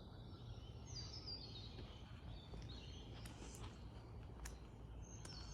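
Faint bush ambience: birds calling in short runs of high chirps that step downward, about a second in and again near the end, with a few sharp ticks in between, over a steady low rumble.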